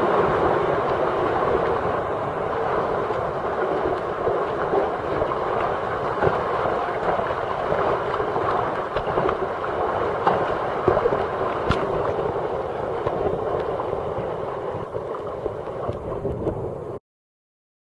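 Sea water rushing and churning around a sea kayak as it paddles through swell in a narrow rock channel. The sound is a steady wash with small splashes, and it cuts off suddenly near the end.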